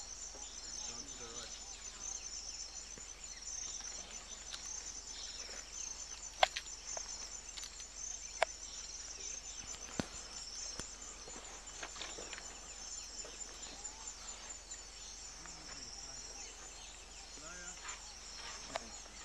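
Steady, high, pulsing insect chorus in bush. Three sharp clicks land between about six and ten seconds in, and low murmured voices come near the end.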